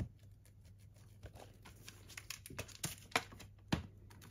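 Handling noise from a metal steelbook Blu-ray case being turned and moved in the hands: a run of light clicks and taps, the two loudest about three seconds in and near the end.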